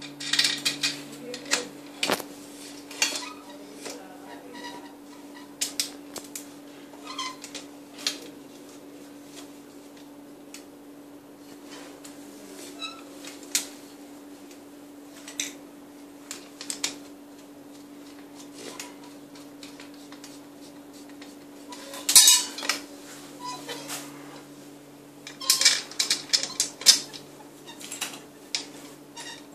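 Clinks, clicks and knocks of baby-cradle parts being handled during assembly: metal pins and frame tubes rattling against each other and the floor, in scattered clusters, loudest about two-thirds of the way in and again near the end. A steady low hum runs underneath.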